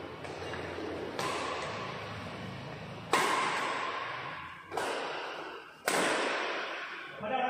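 Badminton racket strikes on a shuttlecock during a doubles rally: about six sharp hits, one every second or so, each ringing on in the echo of a large hall.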